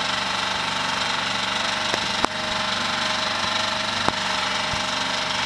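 Small boat's engine running steadily with a fast, even pulsing beat, heard from the cockpit; two short sharp knocks come about two and four seconds in.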